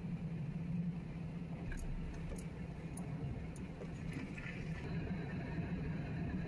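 Freight train of autorack cars rolling slowly past, a steady low rumble of wheels on the rails, with a few short high squeaks or clicks between about two and four seconds in.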